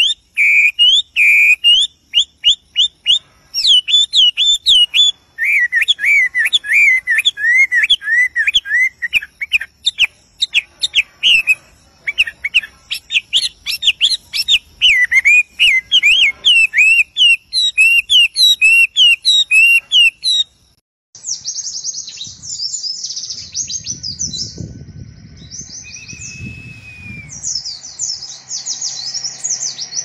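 Chinese hwamei singing a loud, varied song of quick rising and falling whistled phrases. A little past two-thirds of the way through it cuts off abruptly, and a white-eye's high, rapid twittering takes over.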